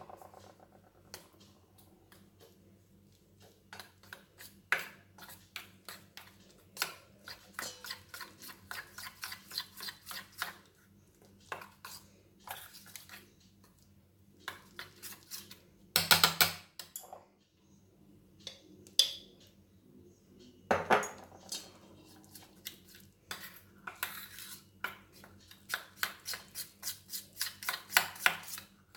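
Flour and ghee being rubbed together by hand in a small stainless steel bowl: runs of quick scraping and rattling strokes against the bowl, with two louder knocks in the middle stretch.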